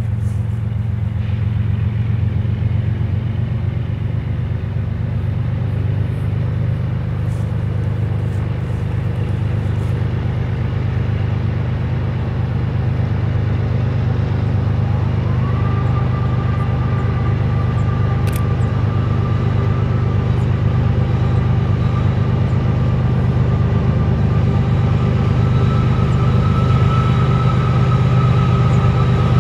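Diesel locomotive engine running with a steady low rumble that grows gradually louder. About halfway through, a whine climbs in pitch and then holds steady.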